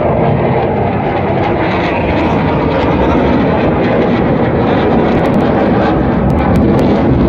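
Jet fighter flying overhead: a steady, loud jet-engine roar that builds a little and then holds.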